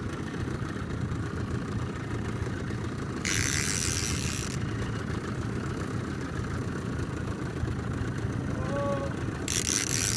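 Boat's outboard motor idling steadily. Two brief bursts of hissing noise come over it, about three seconds in and near the end.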